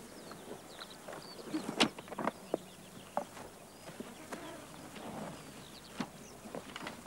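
Irregular wooden knocks and clatter from a ger's wooden door frame and lattice wall being handled, the loudest knock about two seconds in, with small birds chirping.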